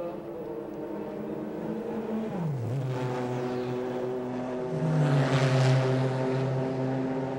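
Race car engines running at speed on track. One engine note drops sharply about two seconds in, and a car passes close, loudest around five to six seconds in.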